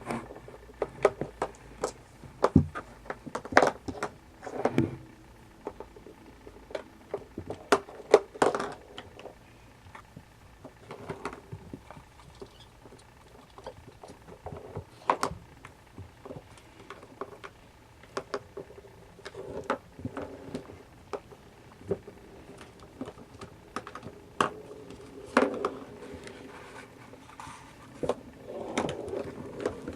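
Kittens playing: irregular taps, knocks and scrabbling, with a few louder knocks scattered throughout.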